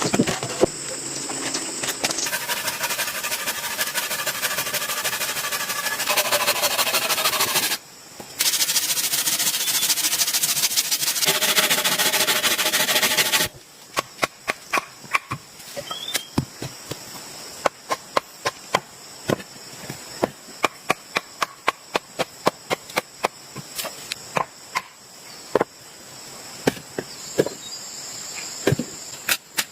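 Heavy steady rain hiss for about the first half, broken by a short gap. Then it drops to a steady high insect drone with a rapid run of sharp knocks, about two or three a second.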